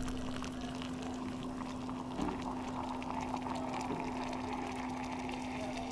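Just-boiled water poured in a thin, steady stream from a metal pot into a ceramic mug of tea leaves, lemon and mint, with a steady low hum underneath.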